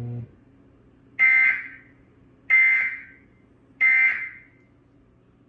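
Three short bursts of Emergency Alert System SAME data tones, a harsh electronic screech repeated about every second and a quarter, each tailing off quickly: the end-of-message code closing a flash flood warning.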